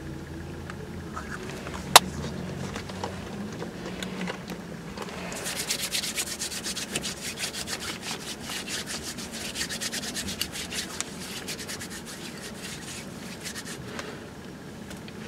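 A small plastic hand-sanitizer bottle's flip-top cap snaps shut with one sharp click. A few seconds later, hands rub together quickly for about six seconds, working the sanitizer gel in, the strokes fading out near the end.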